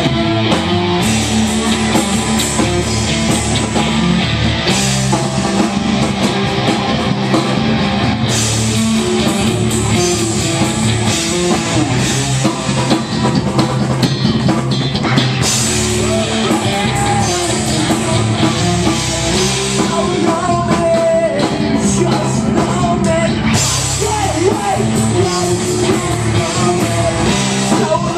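Live rock band playing: electric guitar, bass and drum kit, with a voice singing over them in stretches.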